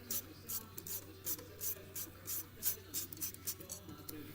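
A hand ratchet wrench worked in short strokes on the engine, giving quick scraping clicks about three times a second, over a faint steady hum.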